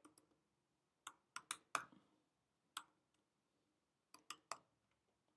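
Faint, scattered keystrokes on a computer keyboard: about eight separate clicks, a cluster of four between one and two seconds in, one near the middle and three more later on.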